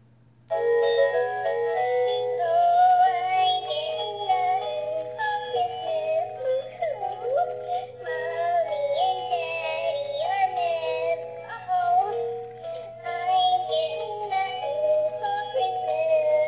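Animated plush Christmas puppy toy singing a song in a synthetic voice through its small speaker, starting about half a second in, over a steady low hum.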